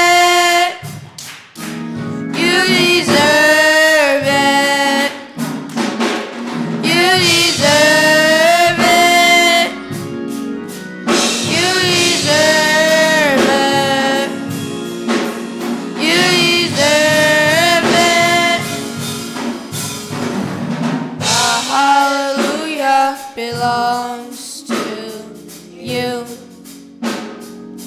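Youth choir singing a church worship song in long sustained phrases of two to three seconds with short breaks between them, over organ and keyboard with drums. Toward the end the singing thins out and the drum hits stand out.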